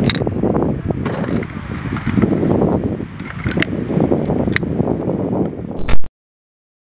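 Metallic clicks and rattles of a grenade launcher being handled and worked, over steady background noise. A single loud bang comes just before the sound cuts off abruptly, near the end.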